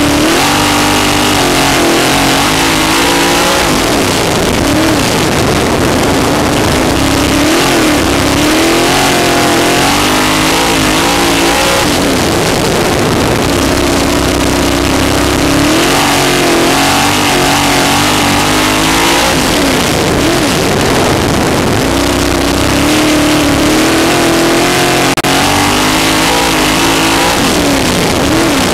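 Sprint car's V8 racing engine at full race speed, heard from the cockpit. Its pitch falls and climbs again every few seconds as the throttle is lifted and reopened through the turns, over a constant loud rushing noise.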